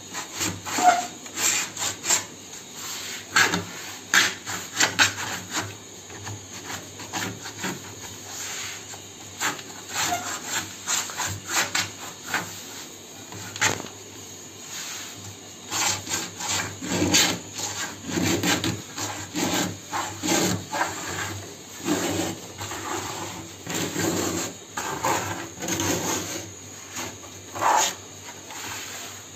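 Repeated scraping strokes of a hand tool on a piece of sunmica laminate as it is worked by hand into a circle, coming irregularly at about one to two strokes a second in the second half.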